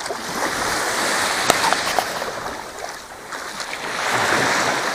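Small sea waves washing onto a sandy shore, the surf swelling and falling back twice, with a single sharp click about one and a half seconds in.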